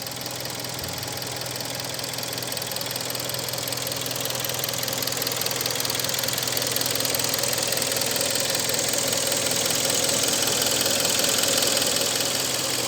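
Hyundai ix35's 2.0-litre G4KD petrol four-cylinder running steadily after a full overhaul. Its scuffed cylinders two, three and four were bored out during the rebuild.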